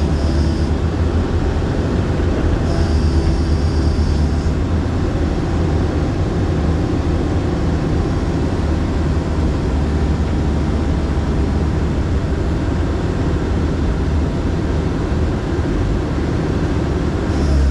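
Excavator diesel engine running steadily with a low drone, heard from on board the machine. A thin high whine joins briefly about three seconds in.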